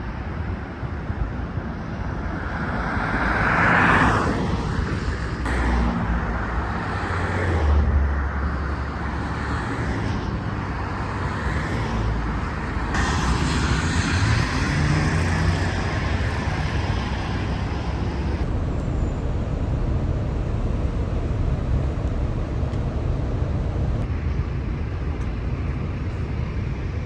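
Road traffic noise: vehicles passing with a steady low rumble that swells about four and again about eight seconds in.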